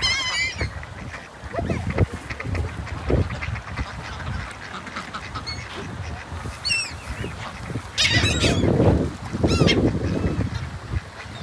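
Waterfowl and gulls squabbling over bread, calling in several short harsh honks and squawks, a cluster of them about two-thirds of the way in, over a low rumble.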